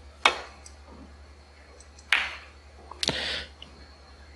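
Snooker balls striking each other and the cushions: three sharp clicks spread over about three seconds, the last followed by a brief rattle.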